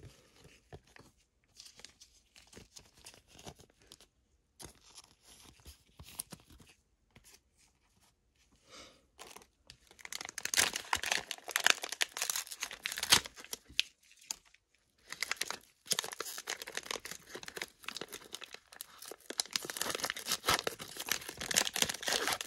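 Faint rustling of trading cards being handled, then, from about ten seconds in, loud crinkling and tearing of the plastic wrapper as a Panini Prizm football value pack is ripped open and its inner packs pulled out.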